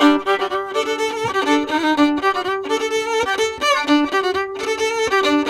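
Instrumental background music: a quick melody of short notes, with brief pauses between phrases.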